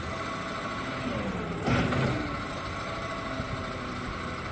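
Small 1.5-ton wheel loader's diesel engine running steadily while the hydraulic boom lowers the bucket. The engine note dips and rises about a second in, and a short louder rush comes about a second and a half in.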